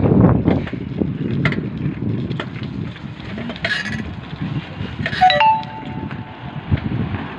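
Wind buffeting the microphone and the rumble of a KTM motorcycle and its tyres while riding along a road. A short pitched horn beep sounds about five seconds in.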